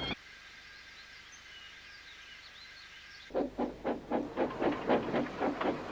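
Faint bird chirps over quiet outdoor ambience. About three seconds in, a steam locomotive starts chuffing, about four puffs a second, growing louder.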